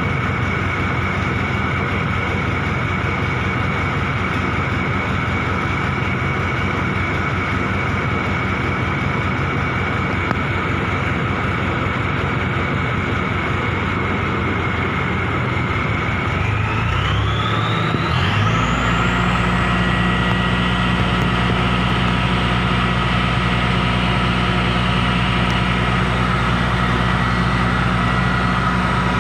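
Truck-mounted crane's engine running steadily, then about two thirds of the way through revving up with a rising whine and holding at the higher speed while the crane lifts a track idler.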